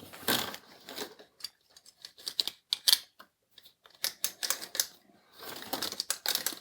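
Plastic split spiral cable sleeve clicking and rustling irregularly as its loading tool is pulled along it, closing the sleeve around a bundle of wires.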